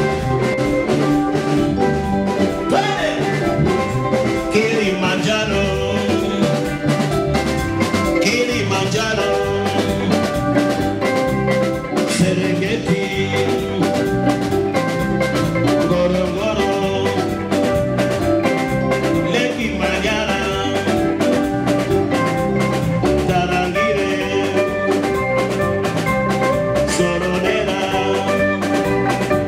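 Live band music: electric guitar, bass guitar and drum kit playing an upbeat dance groove with a steady drum beat.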